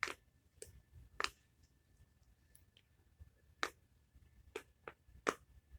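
Bubbles of a silicone bullseye star pop-it fidget toy being pressed, giving about seven sharp pops at uneven intervals.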